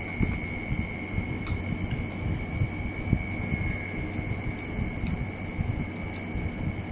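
Close-up chewing of corn on the cob coated in crushed Takis, with irregular small mouth and bite noises over a steady faint high-pitched whine.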